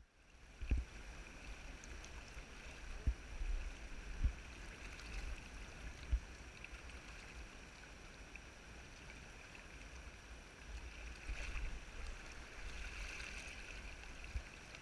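River water rushing through a shallow riffle around a wader. A steady low rumble runs under it, with a few dull knocks in the first six seconds.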